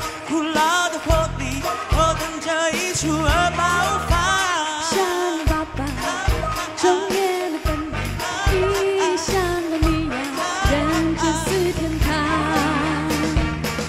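A pop song performed live: a sung melody over instrumental accompaniment with a pulsing bass line.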